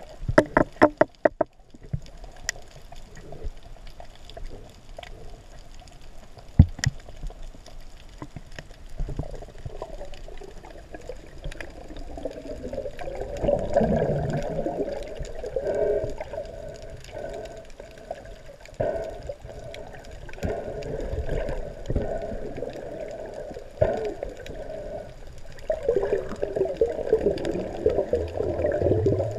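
Muffled underwater sound picked up by a snorkeller's camera: water moving and gurgling around the housing, with a quick run of sharp taps just after the start and bubbly swells around the middle and near the end.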